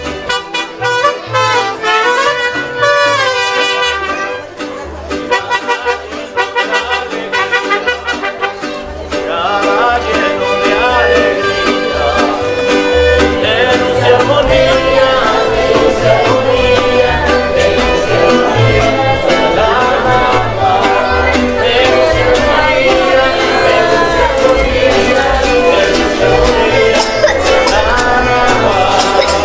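Live mariachi band playing, with a plucked guitarrón bass pulse, guitars and brass, getting louder and fuller about nine seconds in, with a voice singing over it in the later part.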